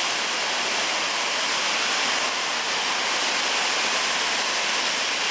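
Natural gas escaping under pressure from a fractured 8-inch pipeline, a loud, steady rushing hiss.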